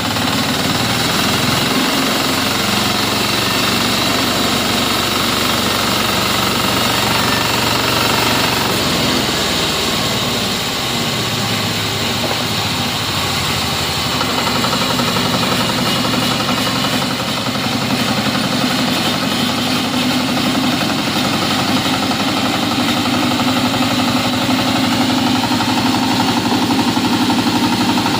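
Engine-driven homemade sawmill running steadily, with a fast rattling beat; its tone shifts a few times.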